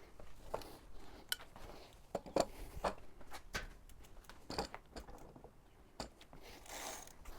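Irregular clicks, knocks and short rustles of equipment being handled and set up, with a longer scraping rustle near the end.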